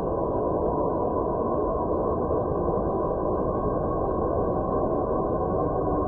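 Radio emissions from Saturn converted into audible sound: a steady, dense, rumbling drone with a wavering, eerie texture.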